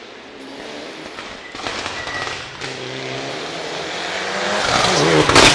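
Rally car approaching at speed on a stage, its engine growing steadily louder with changes in engine note as it shifts, and two sharp loud bangs near the end as it arrives.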